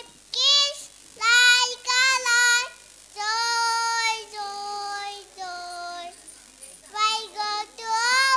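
A child singing solo in short phrases, with a few longer held notes in the middle and no instruments heard.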